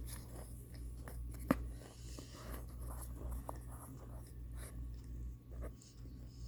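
Close-up chewing of microwaved cornstarch chunks: dry, scratchy crackling with one sharp crunch about one and a half seconds in.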